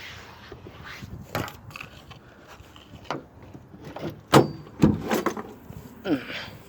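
Scattered knocks and clatters of things being shifted about in a pickup truck while someone hunts for an axe, the sharpest about four and five seconds in.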